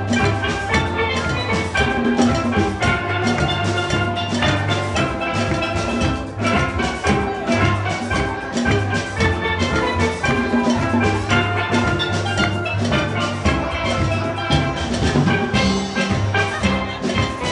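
Steel band playing live: steel pans ringing out a rhythmic melody over drums that keep a steady beat.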